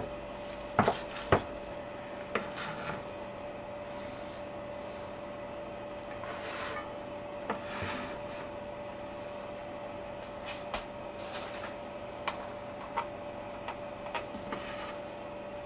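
Knife cutting fresh mint leaves on a cutting board: scattered sharp taps, the two loudest about a second in, with a few short scraping swishes. A faint steady hum runs underneath.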